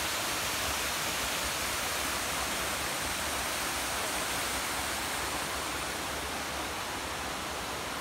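Water of a waterfall falling, a steady, unbroken rush.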